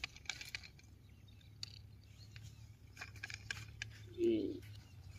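Light clicks and taps from a small plastic toy tractor being handled and turned over, with a short, low animal call about four seconds in.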